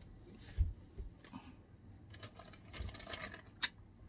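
A camera battery being taken out of its packaging by hand: a low thump, scratchy rustling and scraping, and a sharp click near the end.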